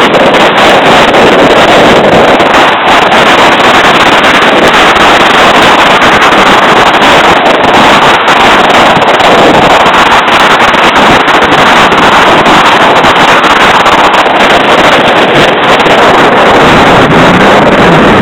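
Jet ski running at speed across choppy water, heard as a loud, steady rush of wind blasting the microphone, with the engine and spray beneath it.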